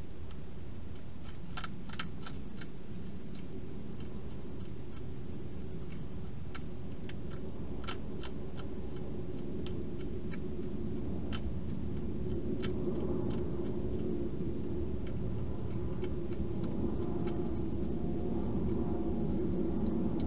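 Scattered sharp clicks of a wild hedgehog crunching dry food, over a steady low rumble that grows louder in the second half.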